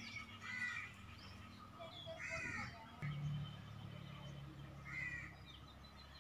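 A crow cawing three times, a couple of seconds apart, faint. A low steady hum comes in about three seconds in.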